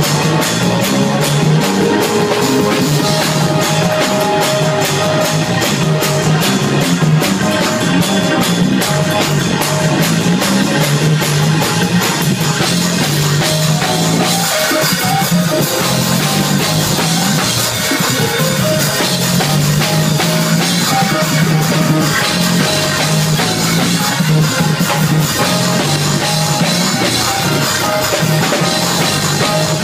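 Live gospel band playing a fast praise break, loud: drum kit and cymbals driving a quick steady beat under a strong moving bass line.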